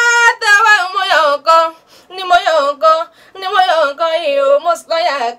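A woman's voice chanting Yoruba oriki (praise poetry) unaccompanied, in a sing-song that holds notes and glides between pitches, broken by short pauses about two and three seconds in.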